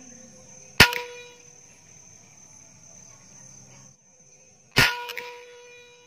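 Two shots from a scoped air rifle, about four seconds apart, each a sharp crack followed by a brief metallic ring. A steady high insect drone runs underneath.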